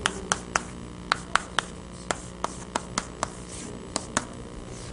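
Chalk tapping and clicking against a blackboard while writing: a quick, irregular string of sharp taps, roughly two or three a second.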